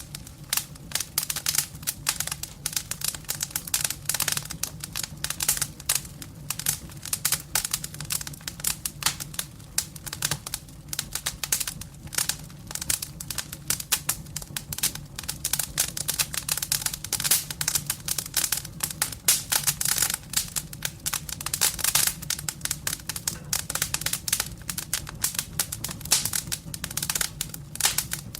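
Firewood burning in a fireplace, crackling with dense, irregular snaps and pops over a steady low hum.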